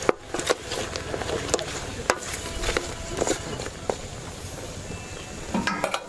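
Wooden spatula stirring pieces of pork in an aluminium pot, with irregular knocks and scrapes against the pot over the hiss and sizzle of the meat cooking in its juices.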